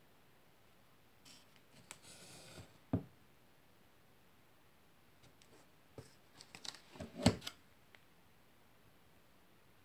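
Hardcover book in a paper dust jacket being handled on a wooden table: a brief sliding rustle ending in a knock about three seconds in, then a quick run of taps and rustles and a sharper knock a little after seven seconds as the book is turned over and laid down.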